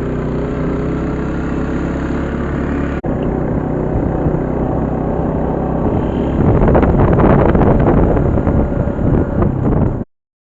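Strong wind buffeting the microphone over a steady low drone, growing louder and gustier about six seconds in, then cutting off just before the end.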